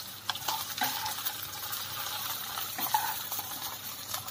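Stir-fried okra sizzling in a hot non-stick pan as it is scraped out with a spatula into a bowl, with a few short knocks and scrapes over a steady hiss.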